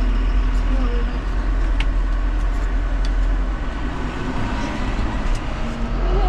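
Farm vehicle driving, heard from inside the cab: steady engine and rough-ground rumble, with a few faint rattling clicks.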